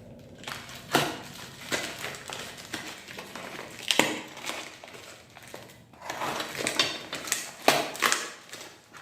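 Packaging being opened and handled by hand: irregular crinkling and crackling with a few sharp snaps.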